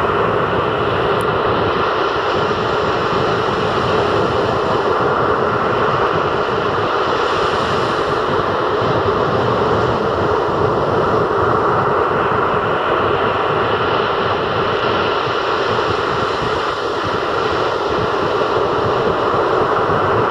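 Rough sea surf breaking on a sandy beach: a loud, steady rush of waves and foam.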